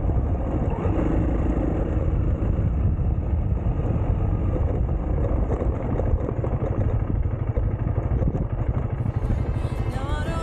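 Onboard sound of a dual-sport motorcycle riding a dirt trail: the engine running steadily under way, mixed with dense wind noise on the camera microphone.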